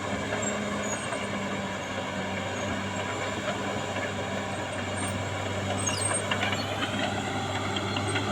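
Caterpillar D6R XL bulldozer's diesel engine running steadily under work, with brief high-pitched squeals near the end.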